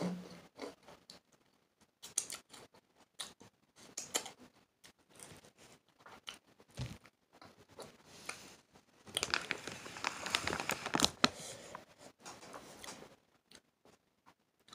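Crunchy chewing of Takis rolled tortilla chips, mixed with the crackle of the shiny plastic chip bag being handled; the crinkling is densest from about nine to eleven seconds in.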